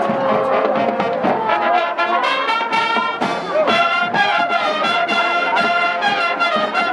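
Marching band playing a brass-led piece: trumpets, trombones, saxophones and sousaphones sounding full chords over marching percussion, settling into long held chords about halfway through.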